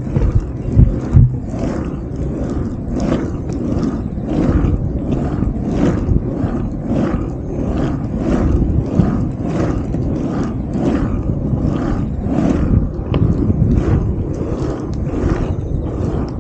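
Longboard wheels rolling on rough asphalt: a loud, continuous rumble that pulses about twice a second.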